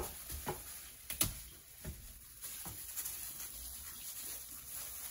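Gloved hands handling a bunch of bananas in a plastic colander, pulling one banana off: a few light knocks and rustles in the first three seconds, then quieter handling.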